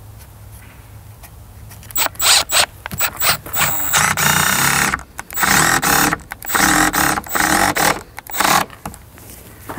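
Cordless drill driver driving a screw into a timber batten: a run of short trigger bursts about two seconds in, then longer runs of the motor whine, stopping about a second before the end.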